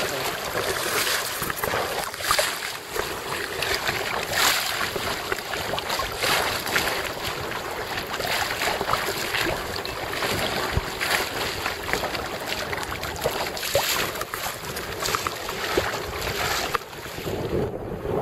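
Wind rushing over the microphone and water washing against the hull of a small sailboat under way. It is uneven, with frequent brief surges, and eases briefly near the end.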